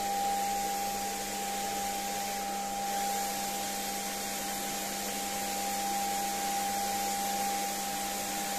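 Electric paint sprayer spraying polyurethane varnish onto a wooden floor, its motor running steadily with an even whine over a hiss.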